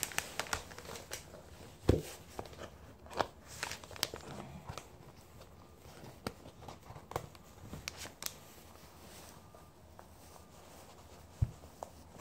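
Handling noise from a tablet being worked into its case: scattered clicks, taps and rustles. There is a dull thump about 2 s in and another near the end.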